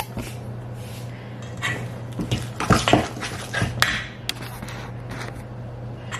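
A fork clinking against a stainless steel mixing bowl and hands mashing a sticky sugar-and-butter mixture, with scattered clinks and wet squishing, densest in the middle. A steady low hum runs underneath.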